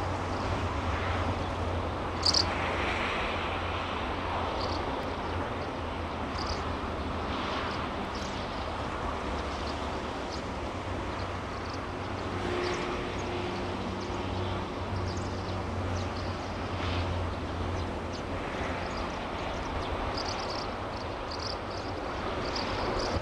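Outdoor ambience beside a railway line: a steady rushing background noise with a low hum, and short high bird chirps here and there. A faint steady tone comes in about halfway.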